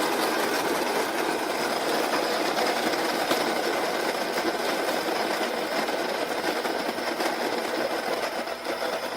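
Baratza Encore conical burr coffee grinder running and grinding whole coffee beans at a coarse French-press setting: a steady motor-and-burr grinding noise with fine crackling ticks, easing slightly near the end. Not too terribly loud for a grinder.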